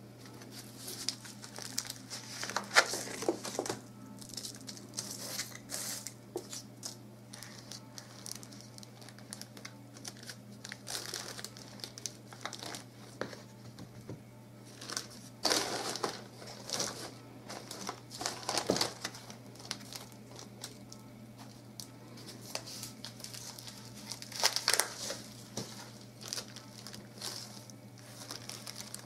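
Plastic bag and newspaper crinkling and rustling as hands press hyacinth bulbs into a pot of soil, in irregular handling noises with a few louder bursts. A faint steady hum lies underneath.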